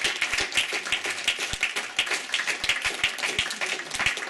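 Small audience applauding, many hands clapping at once with individual claps audible.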